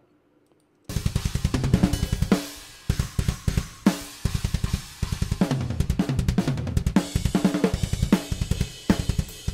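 Raw multitrack recording of a metal drum kit playing back: rapid bass drum strokes with snare hits and a steady wash of cymbals, starting about a second in and cutting off at the end.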